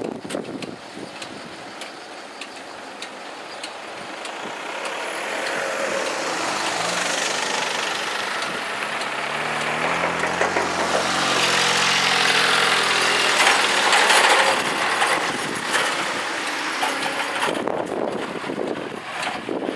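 Cars pulling away over a level crossing as the barrier rises. One car's engine builds up and passes close, loudest a little past halfway, and another car follows near the end.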